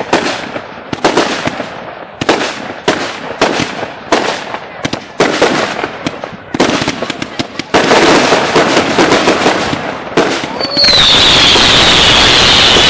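Consumer fireworks cake firing shot after shot, a sharp bang about every three-quarters of a second, thickening into a dense continuous crackle about eight seconds in. Near the end a loud steady hiss takes over, with a whistle sliding down in pitch.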